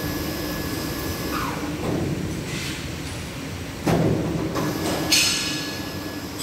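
Steady metal-workshop din with metal being struck: a sharp knock about four seconds in, then a louder, ringing steel clang a second later.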